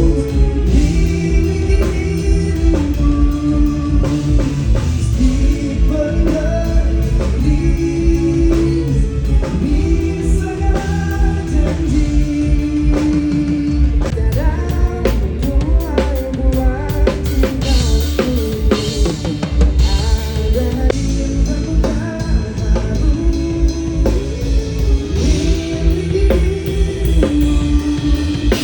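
Live rock band playing an instrumental passage: drum kit and bass under a lead melody of long held notes.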